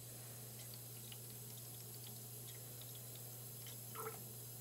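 Photographic fixer concentrate poured in a thin stream from a plastic jug into a tall graduated cylinder: a faint, steady trickle of liquid over a steady low hum.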